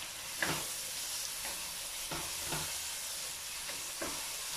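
Chopped onions, chillies and spices frying in hot oil in a stainless steel pot, sizzling steadily while being stirred with a spoon, with a few short scrapes of the spoon against the pot.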